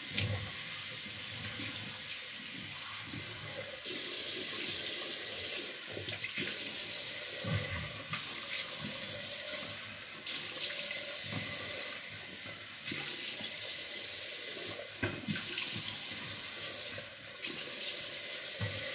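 Water running from a bathroom tap into a sink, with irregular splashing as a face is wetted with it before shaving.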